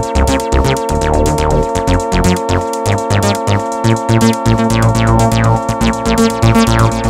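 Electronic background music: synthesizer chords over a fast, steady drum-machine beat with a pulsing bass.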